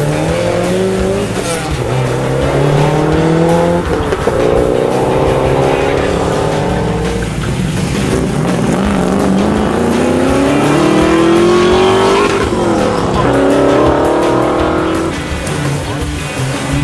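Classic rally cars' engines accelerating hard out of a street corner one after another, each engine note rising and dropping back at the gear changes, in about five rising sweeps.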